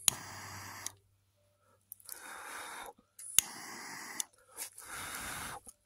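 A person blowing in four short breaths, about a second each with pauses between, onto a freshly lit piece of char cloth, with a sharp click at the start.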